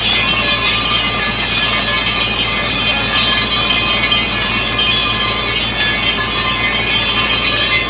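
Borewell drilling rig running while muddy water blasts up out of the bore casing in a spray and pours onto the ground: a loud, steady hissing rush over a machine drone. The water has been struck at about 220 feet.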